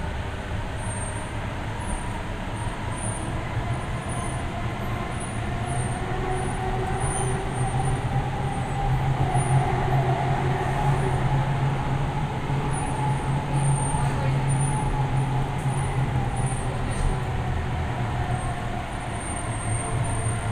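Hyderabad Metro train running along its elevated track, heard from inside the carriage: a steady low rumble and hum of wheels and traction motors. It gets louder for several seconds around the middle, as a train on the other track passes close alongside.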